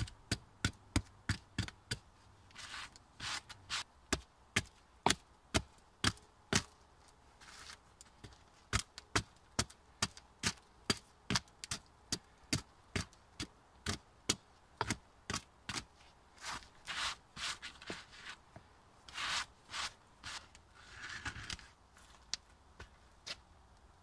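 Small axe chopping into a rotten pine log to cut a notch, sharp blows at about two a second, with a few longer scraping sounds of wood being shaved.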